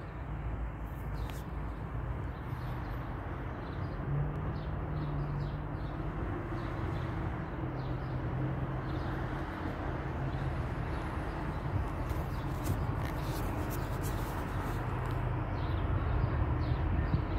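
Diesel locomotive of an approaching MBTA commuter train running in the distance, a steady low drone that grows louder near the end. Birds chirp briefly over it.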